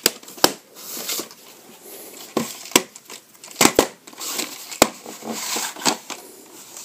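Plastic VHS clamshell case being handled and opened, with a cassette pulled out. There are sharp plastic clicks and snaps, about eight of them, over rustling.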